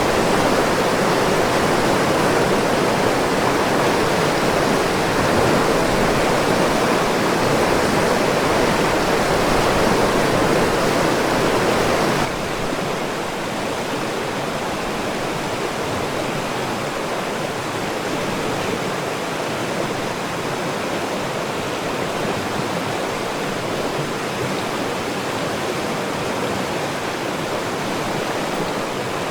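Steady rushing of fast water on the Kolvitsa river. About 12 seconds in the sound cuts suddenly to a quieter, thinner rush, as from a different spot on the water.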